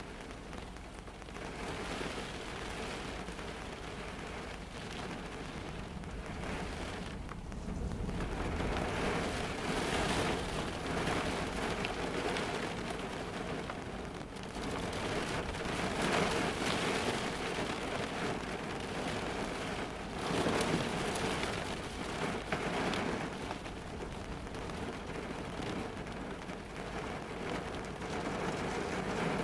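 Heavy rain drumming on the roof and windows of a car, heard from inside the cabin, swelling and easing in waves and heavier from about eight seconds in.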